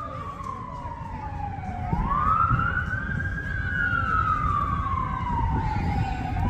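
Emergency vehicle siren sounding a slow wail. The pitch falls, rises again about two seconds in, falls slowly over several seconds, then starts to rise once more at the end. A low rumble runs underneath.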